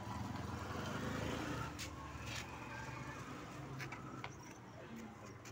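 Low, steady rumble of passing road traffic that eases after about two seconds, with a few faint clicks later on.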